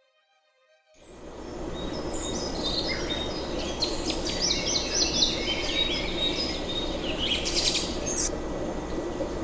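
Rainforest ambience fades in about a second in: a steady low background din with birds chirping over it in quick runs of repeated high notes, which stop shortly after eight seconds.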